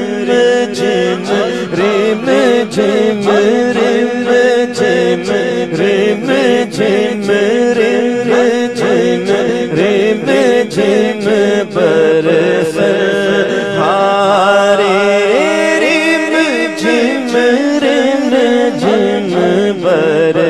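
Male voice singing a naat in long, wavering, drawn-out phrases through a microphone, over a steady low drone and a regular beat of sharp taps.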